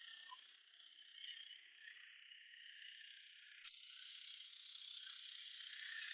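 Near silence: a faint, steady high-pitched hiss that grows a little louder toward the end.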